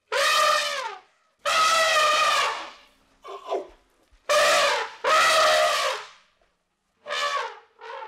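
Elephant trumpeting: a run of about six loud calls in quick succession, each up to about a second long.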